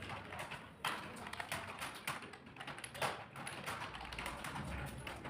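Fast typing on a computer keyboard: a dense, uneven stream of key clicks with no pause.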